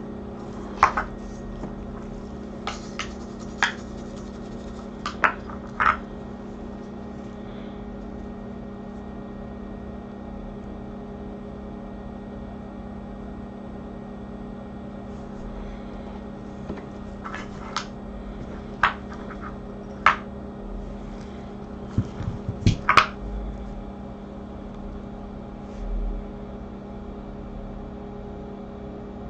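Steady hum of microsoldering bench equipment, with a few light clicks and taps of tools against the circuit board in two clusters, near the start and again about two-thirds through.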